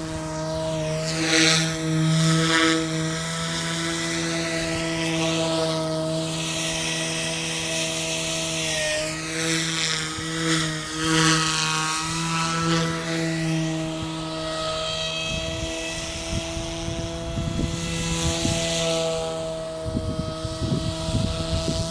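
SAB Goblin Fireball electric RC helicopter in flight, its rotor and motor giving a steady hum of several tones, with whooshes that sweep up and down in pitch as it moves and manoeuvres.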